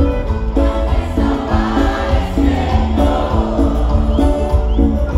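Live band music over a concert sound system, heard from among the audience: voices singing held notes over a heavy, steady bass.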